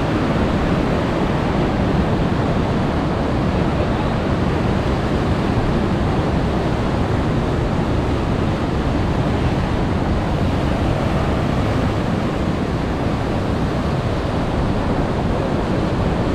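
Ocean surf breaking and washing against the boulders of a rock jetty: a steady, unbroken rush of waves.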